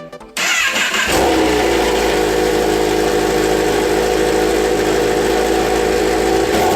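Kawasaki ZX-10R inline-four engine starting on a cold start through its stock exhaust, catching about half a second in and settling into a steady idle.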